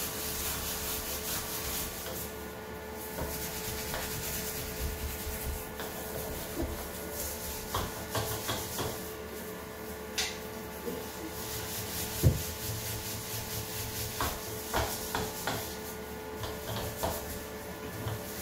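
Steel-wool scourer scrubbing a ceramic bathroom sink and around its chrome tap in a steady run of back-and-forth rubbing strokes, with one sharp knock about twelve seconds in.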